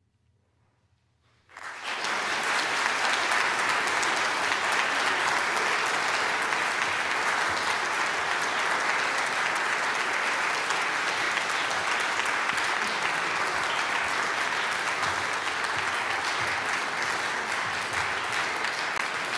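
Near silence for about a second and a half, then an audience breaks into steady applause, which cuts off abruptly at the end.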